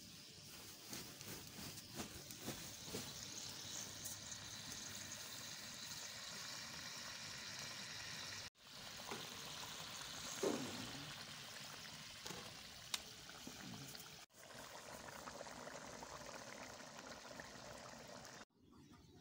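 Curry boiling in a steel kadai, a steady bubbling and fizzing with a few small clicks, breaking off briefly three times.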